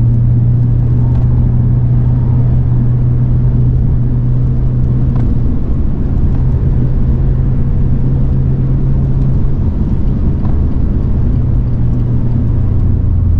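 BMW 120i's B48 turbocharged four-cylinder engine running at steady revs: a constant low drone with road noise, holding one pitch throughout.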